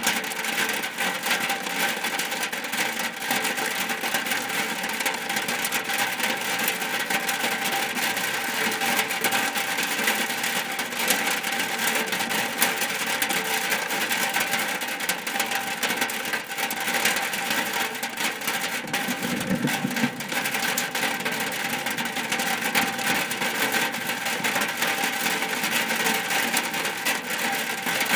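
Rain falling on a shack's roof: a dense, steady patter of many small drop impacts, unchanging throughout.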